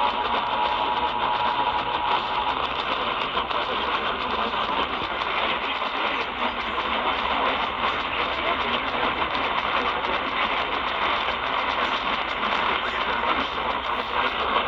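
Radio static: a steady, even hiss from a weakly received, narrow-band broadcast signal, with a steady whistle tone that stops about two seconds in.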